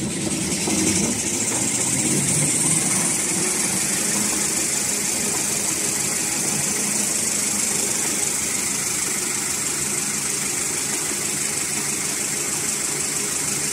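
Automatic glue-lamination toilet paper rewinding machine running: a steady mechanical hum from its motors and rollers with a strong high hiss. It grows louder over the first second or so, then holds steady.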